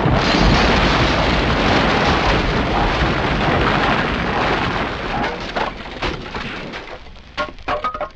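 Explosion sound effect dying away: loud, even noise from the blast that fades over several seconds, with a few sharp cracks near the end.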